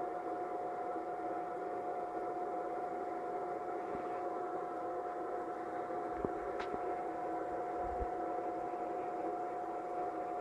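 Steady mechanical hum with a constant mid-pitched tone, like a running fan. Two faint clicks come a little past halfway, followed by a soft low thump.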